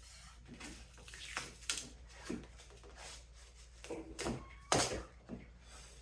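A string of irregular knocks and clicks, as of small hard objects being handled and set down. The loudest knock comes a little under five seconds in.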